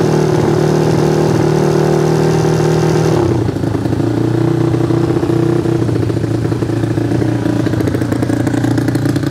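A Yamaha Fino scooter's single-cylinder four-stroke engine, bored up to 200 cc and fitted with a CLD FFA-type aftermarket exhaust, running steadily without being revved. Its note drops slightly about three seconds in.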